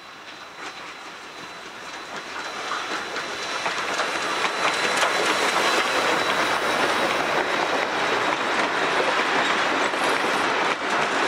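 South Australian Railways Rx-class steam locomotive and its train of carriages passing close by. The rush of the train grows louder over the first few seconds as it draws near, then holds steady as the carriages roll past, with clickety-clack of wheels over rail joints.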